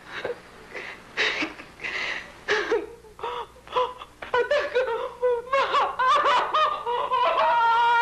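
A woman breaking down in grief: sharp gasping breaths at first, then broken sobbing cries that rise into a long, held wail near the end.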